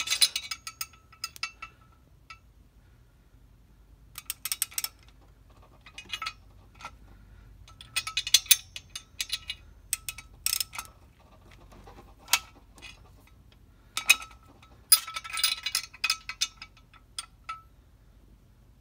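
Irregular bursts of metallic clinking and rattling, some with a short ring: a wrench on a bell housing bolt knocking against the clutch pressure plate as the flywheel is turned by hand, working it until the wrench wedges and locks the flywheel.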